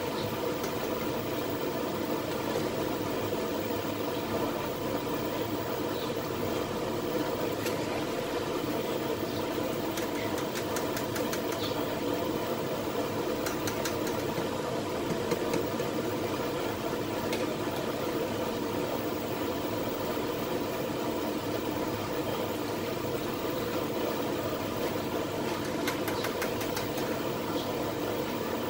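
Stainless steel double boiler on the stove cooking hot process soap: a steady rumbling hum, with a few short clusters of faint ticks.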